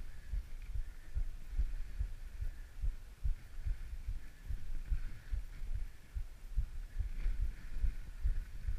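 Skis running along a packed snowy path, heard through a mounted point-of-view camera: a low, uneven thumping rumble, several knocks a second, with a faint hiss of the skis on the snow above it.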